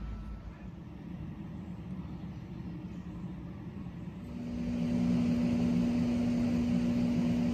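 Low, even background hum, then about four seconds in a louder, steady machine drone with one constant low tone takes over.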